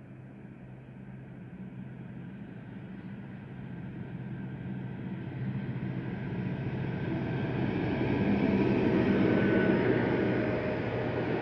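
M62BF diesel locomotive running under power as it approaches with a train of open coal wagons, its steady engine drone growing louder. It passes about eight to nine seconds in, and the rolling noise of the loaded wagons on the rails takes over.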